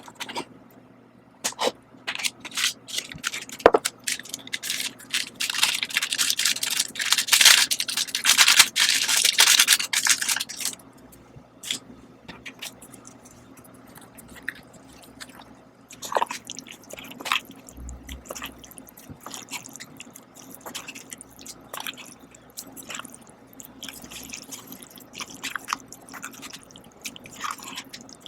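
A person eating a cup of Shin Ramyun instant noodles: wet mouth sounds and clicks of chewing, with a long, loud spell of noisy slurping from about five to ten seconds in.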